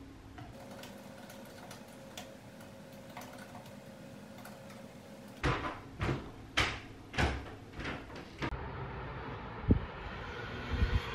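Quiet room tone with faint scattered clicks, then a run of about five loud knocks a little over half a second apart. After that comes a steady outdoor hum of distant traffic with a single thud.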